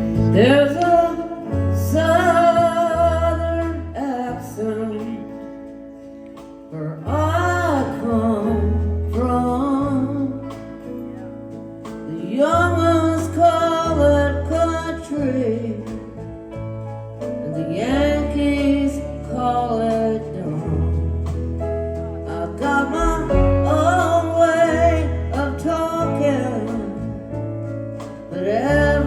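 A live rock band playing a slow song, a singer's long vocal phrases over guitars and a bass line.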